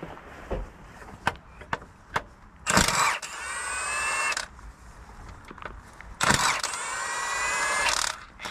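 Cordless Milwaukee Fuel power wrench with a 15 mm socket running twice, each run a little under two seconds, undoing the gearbox support bracket bolts. Each run starts sharply and settles into a whine that rises slightly in pitch, with a few small clicks of the socket and bolts in between.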